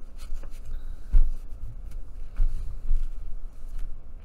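Hands pressing and smoothing a glued paper napkin down onto cardboard: soft rubbing with dull low thumps through the tabletop, the strongest about a second in and another a little before halfway.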